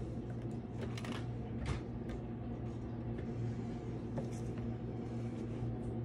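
A steady low hum, with a few faint clicks and rustles about one and two seconds in.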